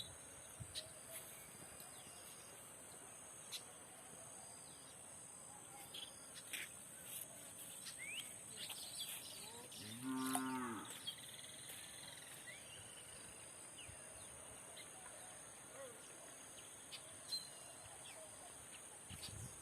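A cow mooing once, a single call of about a second about halfway through, over a steady high drone.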